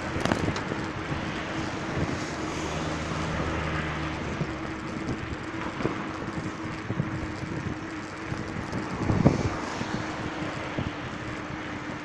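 Wind and road noise from a moving bicycle amid passing motor traffic, with a steady hum throughout and a vehicle engine heard for a couple of seconds early on. A loud bump about nine seconds in.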